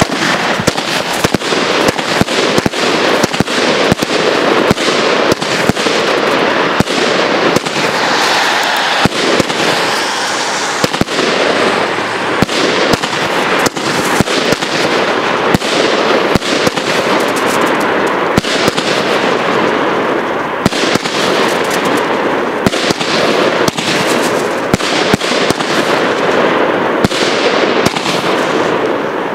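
Alpha Fireworks Toxic Strobe 36-shot firework cake firing: a rapid, irregular run of shots and bursts over a continuous crackling hiss, starting abruptly.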